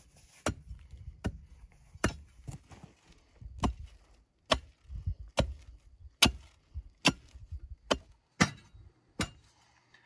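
Steel digging bar repeatedly driven into the rocky bottom of a trench, each strike a sharp crack, about one a second. It is slow, hard chipping through rock and packed clay.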